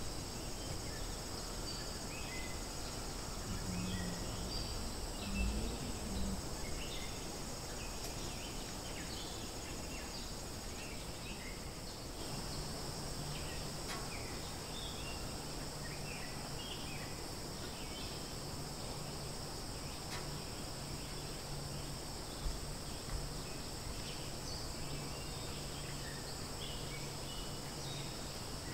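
Steady high-pitched chorus of insects, with scattered short chirps over it and a couple of dull thumps, about five seconds in and again near twenty-two seconds.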